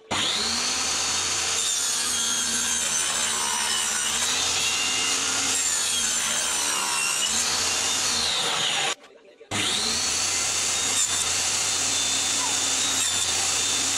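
Table saw motor spinning up with a rising whine and running, the blade's pitch sagging as a board is fed through the cut. It stops abruptly a little after halfway, then spins up again and runs.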